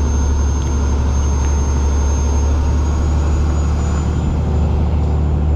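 Steady low drone of a sportfishing boat's engines running underway, heard from the deck, with a faint high steady whine above it.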